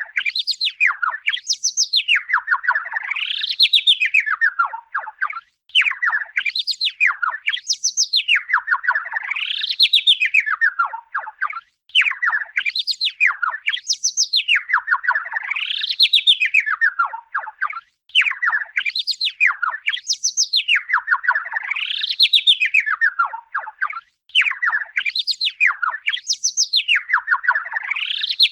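A bird-song sound effect: a rapid pulsing trill that glides up and down in pitch in smooth waves. The same phrase repeats about every six seconds with a brief gap between, as a loop.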